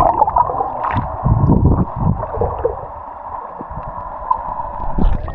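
Water and air bubbles heard underwater through an action camera: a muffled, gurgling rush as a swimmer moves beneath the surface, with dull low thumps between about one and three seconds in.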